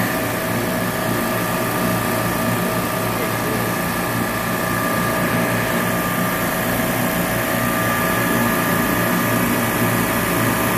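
Steady mechanical hum of a supermarket refrigeration compressor rack running, with several steady tones held over an even machine noise.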